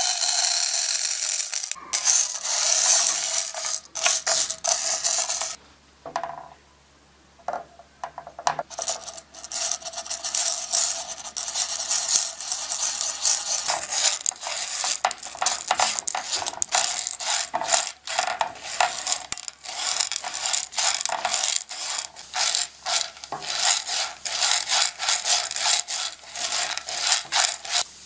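Dry popcorn kernels poured onto a nonstick frying pan rattle and clatter for about five seconds. After a quiet pause of about three seconds, a spatula stirs the kernels around the pan in fast, uneven clicks and scrapes.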